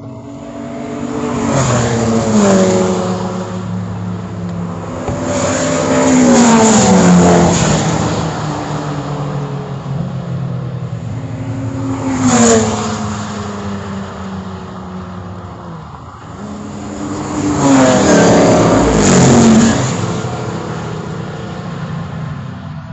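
Classic race cars passing at speed one after another as they take the chequered flag. Several separate pass-bys, each engine note swelling and then dropping in pitch as the car goes by.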